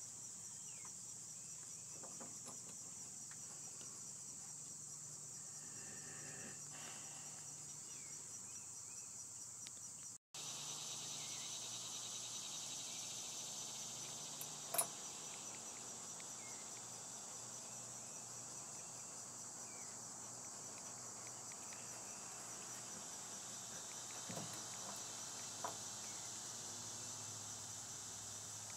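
Steady, high-pitched chorus of chirping insects, with a low hum beneath. The sound drops out briefly about ten seconds in, and a single sharp click comes about fifteen seconds in.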